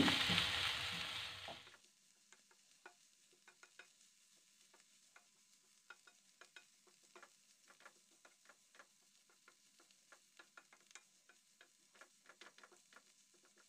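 Wooden spatula stirring spinach and mushrooms in a non-stick frying pan as the spinach wilts. A soft frying sizzle fades out within the first couple of seconds. After that there are only faint, scattered clicks and scrapes of the spatula against the pan.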